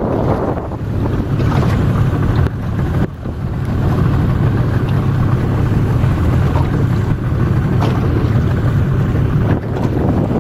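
Strong wind buffeting the microphone in a low, steady rumble, over choppy water splashing, with brief lulls about one and three seconds in.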